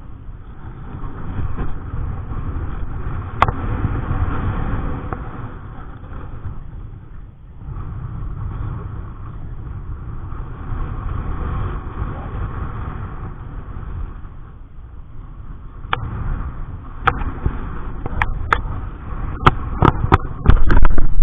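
Strong wind buffeting the microphone, a low rumble that rises and falls in gusts. Several sharp knocks and a loud blast of wind come near the end.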